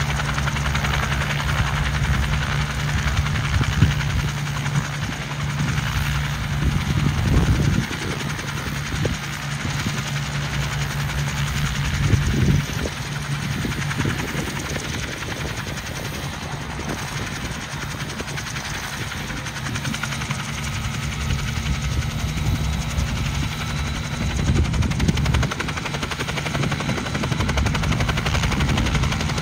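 Bell 47 helicopter running on the ground with its rotor turning: a steady piston-engine drone under a rapid low thumping of the blades, swelling louder a few times.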